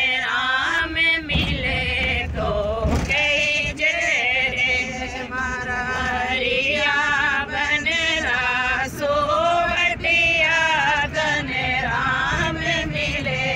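Several voices singing a devotional song together, the sung melody wavering and gliding with ornaments.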